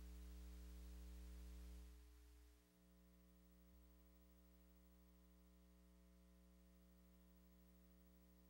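Near silence: a faint steady electrical mains hum with light hiss, dropping in level about two seconds in.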